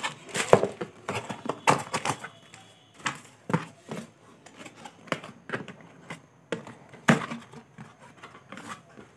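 Cardboard and plastic packaging being handled: an irregular string of short knocks, taps and rustles as a camera box's cardboard insert is lifted and plastic-bagged contents are moved.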